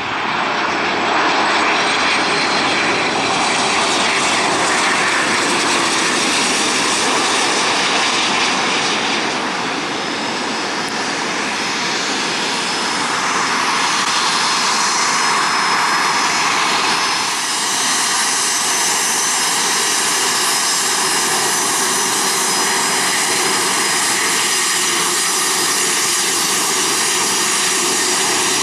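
Jet engine noise. First a Boeing 737 roars past on its landing approach. Then a Bombardier Challenger 650's rear-mounted turbofans run on the runway with a steady high whine over the roar.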